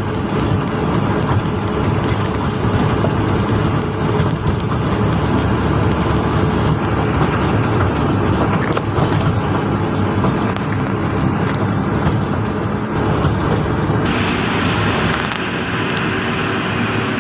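Heavy vehicle's engine running steadily with road noise. About fourteen seconds in the sound shifts and a faint high whine joins it.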